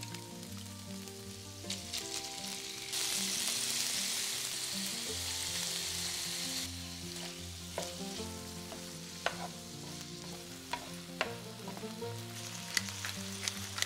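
Wet boiled broccoli hitting hot oil in a pan of frying crumbled sausage: loud sizzling starts about three seconds in and eases after a few seconds. The food then keeps sizzling more softly while it is stirred with a wooden spatula, with a few sharp taps of the spatula on the pan.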